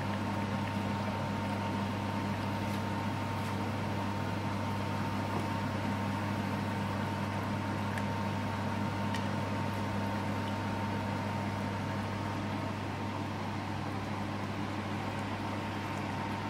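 A handesh cake deep-frying in hot oil in a cast-iron kadai: a steady sizzle with faint crackles, over a constant low hum.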